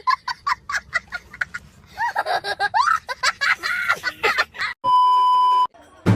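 A run of short, quick high-pitched squeaks followed by bending voice-like calls, then a single steady electronic beep about five seconds in, lasting just under a second.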